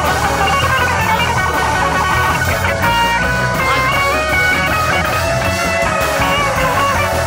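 Instrumental music with a guitar playing melodic lines, some notes bending in pitch, over a steady bass line.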